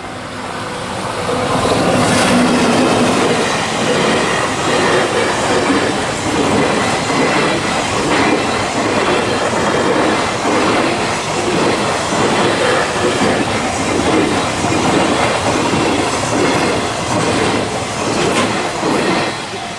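EF64 electric locomotive hauling a long freight train of container wagons past at close range. The rumble of steel wheels on rail swells over the first two seconds and then holds as the wagons roll by, with a regular clatter of wheels crossing rail joints.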